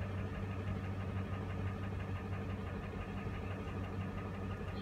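Ford F-150's engine idling steadily, a low even hum heard from inside the cab.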